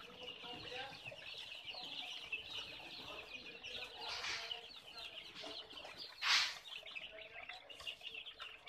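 A large brood of young chicks peeping without a break, many short high cheeps overlapping. A short, louder burst of rustling noise comes about six seconds in, with a fainter one a little after four seconds.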